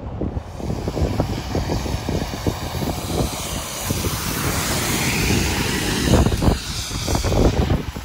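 City transit bus driving past, its engine and tyre noise swelling to a peak about five to six seconds in, with wind buffeting the microphone.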